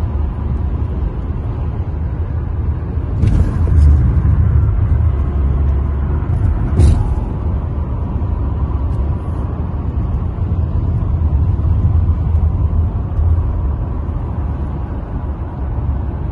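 Steady low road and engine rumble inside a car cabin cruising at highway speed. Two short knocks cut through it, about three seconds in and again about seven seconds in.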